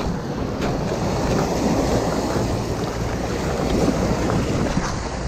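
Small waves washing and breaking over a pebble-and-rock shore, with wind buffeting the microphone.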